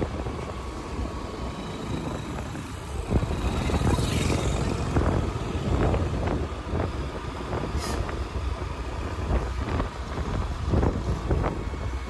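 Steady low rumble of a moving vehicle, with scattered knocks and rattles.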